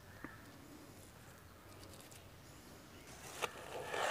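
Faint squelching of wet red soil being handled and pressed into a tub of wet compost by hand, with a sharp click about three and a half seconds in.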